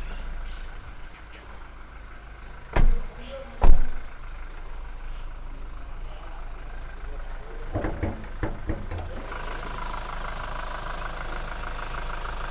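Toyota Innova Reborn's 2.4-litre four-cylinder diesel engine idling steadily with a diesel clatter, a bit noisy as diesels are; it gets louder and clearer about nine seconds in as the hood is raised. Two loud thumps come about three seconds in, and a few clicks and knocks of the hood latch and hood just before it opens.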